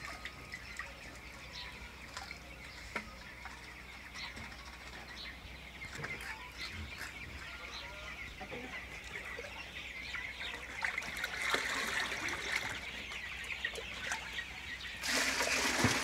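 Large flock of young chicks peeping continuously, with scattered light knocks. A louder rush of noise starts about fifteen seconds in.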